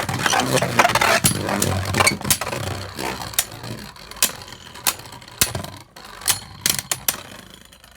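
Two Beyblade Burst QuadStrike spinning tops battling in a plastic stadium: a whirring hum with sharp clacks as they collide. The whir fades and the clacks come further apart as the tops slow down.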